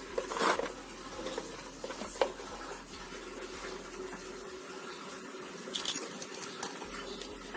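Faint handling noises: a few small clicks and scratchy rustles as electrical cables are moved about on a workbench, over a faint steady hum.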